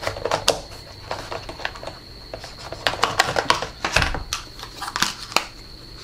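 Irregular plastic clicks, taps and rattles as the dust box of a Tsukamoto AIM-RC03 robot vacuum is opened and its lid and filter are pulled apart by hand.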